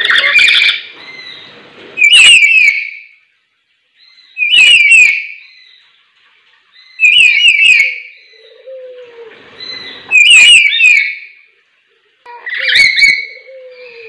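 Caged lories calling loudly: six high-pitched, warbling call bursts, each lasting about a second and repeated every two to three seconds.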